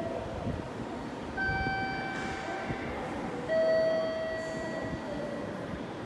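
Railway station concourse ambience: a steady low rumble, with two electronic chime tones over it. The first, higher tone comes about a second and a half in. The second, lower and louder one comes about three and a half seconds in and fades away.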